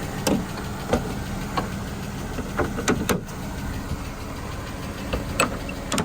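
Car engine idling steadily, with several short clicks and knocks over it.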